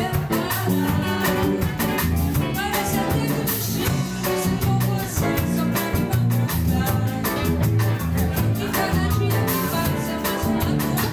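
Live band playing a Brazilian song: electric guitar, bass guitar and drums, with a woman singing into a microphone.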